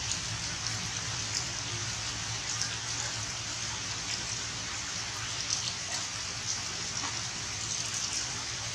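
Steady rain falling on forest foliage, an even hiss with scattered small drop taps, over a low steady hum.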